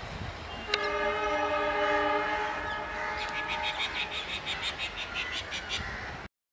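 Indian Railways electric locomotive horn sounding one long blast that starts sharply about a second in and fades out a couple of seconds later, over the low rumble of the passenger train. Near the end, a rapid high-pitched pulsing call, about five pulses a second, and then the sound cuts off.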